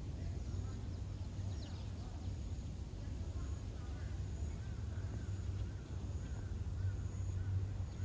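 Steady low outdoor background rumble, with a faint run of short calls about halfway through, typical of distant birds.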